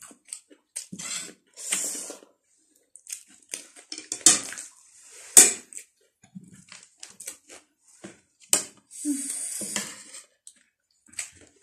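Close-miked eating sounds from a mukbang of spicy instant noodles and chatpate: wet slurps and chewing in short irregular bursts, with a few sharp clinks of forks and spoons on ceramic plates, the loudest about four and five and a half seconds in.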